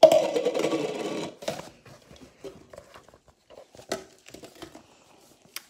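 A buzzing sound, falling in pitch and lasting about a second and a half, made into a red plastic cup held to a child's mouth. It is followed by a few light knocks and rustles from handling.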